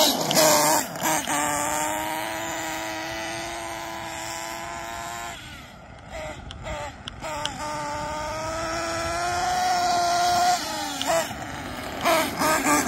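Glow-fuel nitro engine of a Kyosho Inferno Neo ST 3.0 RC truggy running at high revs in a long held run with a slowly rising pitch. It eases off about five seconds in with a few short blips, pulls through a second long run, and ends in a string of quick throttle blips.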